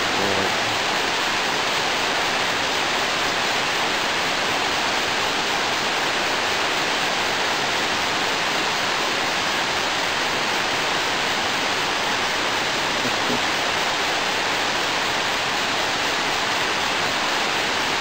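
A river rushing steadily: an even, unbroken hiss of running water.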